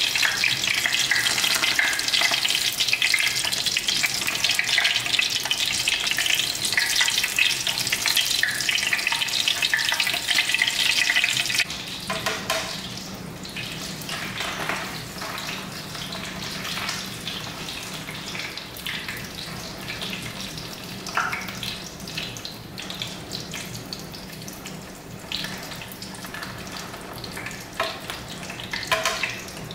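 Oil sizzling in a frying pan as rolls of minced pork wrapped in wild betel leaves fry. The sizzle is loud, then about twelve seconds in it drops abruptly to a quieter steady sizzle with a few short clicks.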